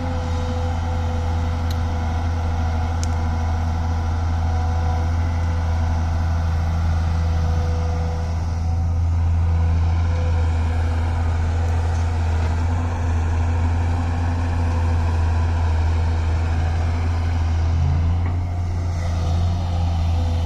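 Engine of an excavator-loader machine running steadily, with a deep continuous hum that swells a little about halfway through.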